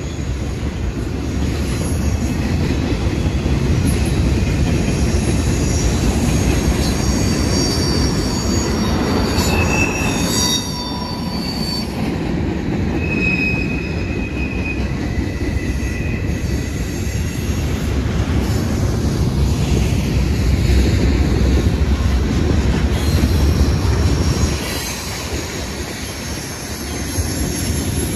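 Freight cars of a CSX mixed freight train rolling past: a steady rumble of wheels on rail, with high-pitched wheel squeal coming and going, most clearly around a third and a half of the way in.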